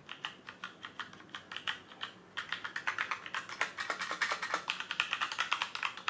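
Fast continuous typing on a Drevo Calibur compact mechanical keyboard with tactile brown switches: rapid keystroke clicks that get louder about two seconds in.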